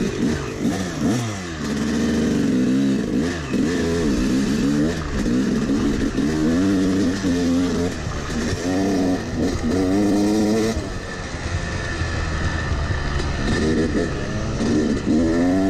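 Yamaha 250 two-stroke dirt bike engine under way, revving up and falling back over and over as the throttle is worked. It eases off for a couple of seconds past the middle, then revs up again near the end.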